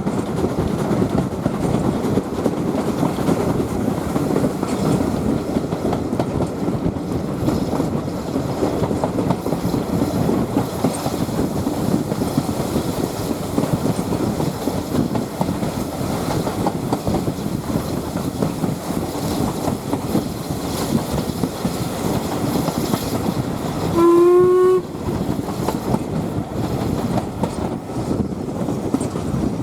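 Steam-hauled train running along the line with a steady rumble and clatter of wheels on rail. About 24 seconds in, the locomotive, an LMS Ivatt 2-6-2 tank engine, gives one short whistle of under a second.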